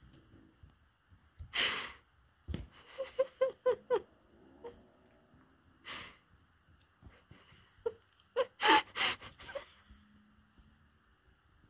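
A person's breathless wheezing and gasping, in separate rushes of breath with a quick run of short gasps about three seconds in. A single low thud sounds about two and a half seconds in.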